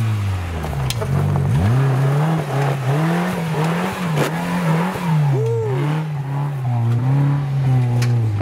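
Modified Suzuki Jimny's engine revving up and down repeatedly under load as the 4x4 crawls up a steep dirt slope, with a few sharp knocks along the way.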